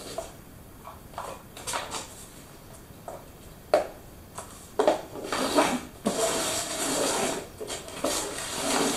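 Paper cups being put down and shuffled on a laminate wood floor: a few light knocks in the first half, then about four seconds of continuous scraping and sliding as the cups are moved around.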